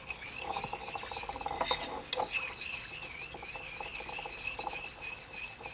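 A spatula scraping and pushing around the edge of a frying pan of potato strips in batter, in short irregular scrapes. A steady, slightly wavering high tone runs underneath.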